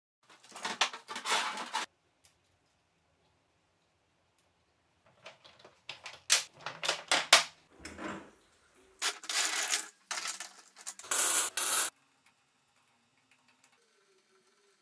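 Steel parts of a homemade snowmobile track (roller chain, steel cleats and rollers) clinking and rattling as they are handled and fitted on a workbench, in three spells of clatter over the first twelve seconds.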